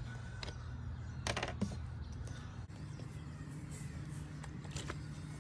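Rubbing-alcohol pad packet being opened and handled: a few short, sharp crinkles and rustles, the loudest about a second and a half in, over a steady low hum.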